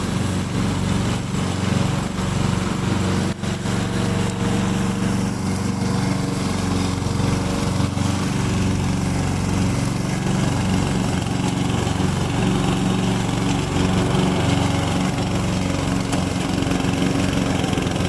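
Remote-control weed cutter's Loncin petrol engine running steadily, with a brief dip about three seconds in.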